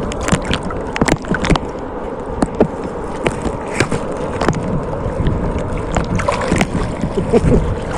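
Shallow seawater sloshing and splashing around people wading, with many short splashes scattered throughout.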